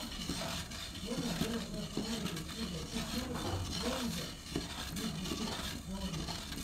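Indistinct voices talking in the background, with a few light taps as aluminium foil trays are handled and greased.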